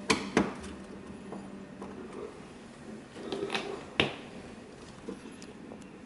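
A few sharp clicks and knocks of hands handling things inside a refrigerator compartment, the loudest just after the start and about four seconds in, over a faint steady hum that fades after about two seconds.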